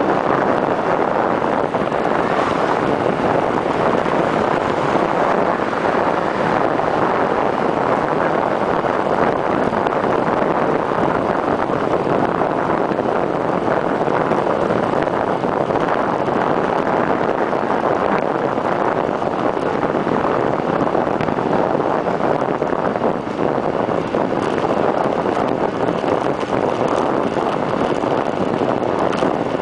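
Wind rushing over the microphone of a camera mounted on a bicycle's stem as the bike descends at speed: a loud, steady rushing noise.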